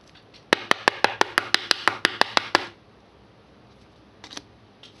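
A quick, even run of about fifteen sharp clicks, roughly seven a second, lasting about two seconds, followed by a couple of faint taps near the end.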